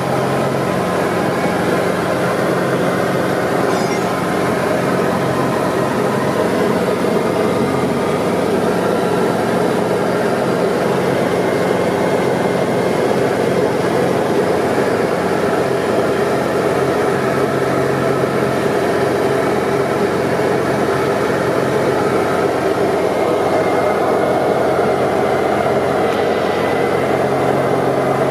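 Cabin noise of a Diamond DA40 light aircraft in flight: the steady drone of its piston engine and propeller, mixed with rushing airflow, heard from inside the cockpit.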